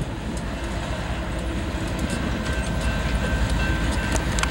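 Rail wheels of a Plasser & Theurer RM 80 UHR ballast-cleaning undercutter rolling past on the track: a steady rumble that grows slightly louder, with scattered sharp clicks and a faint high steady tone.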